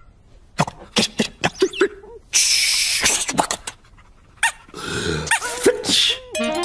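Cartoon sound effects: a string of short clicks and small squeaky, dog-like whimpers, with a hissing whoosh about two and a half seconds in. A quick run of short musical notes comes near the end.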